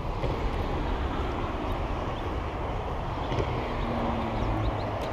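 Steady low rumble of road traffic on the highway overpass, an even wash of noise without a break.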